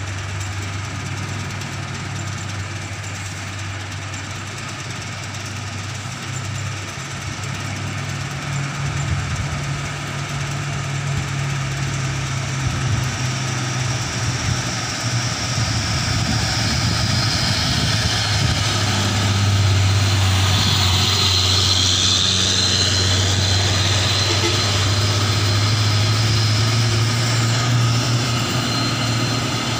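Heavy diesel truck engines running at low revs as loaded trucks crawl along a steep grade, a deep steady hum. It grows louder over the second half, with a higher hiss joining in as a truck comes close.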